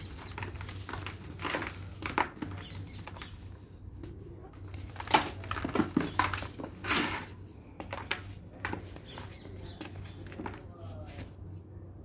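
Hands crushing and crumbling dry sand-and-cement lumps in a tub: irregular gritty crunches and crackles, loudest about five to seven seconds in.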